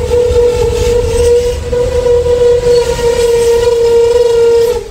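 A long, steady horn note over a low rumble, cutting off suddenly just before the end.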